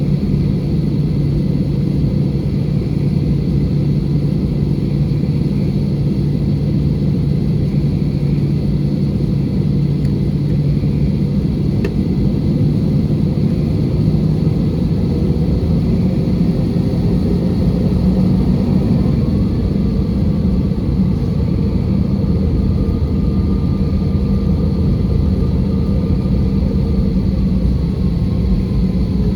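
Steady engine and airflow noise inside an Airbus A320 cabin: a continuous low rumble with a constant low hum. In the second half a faint higher whine drifts up and down in pitch.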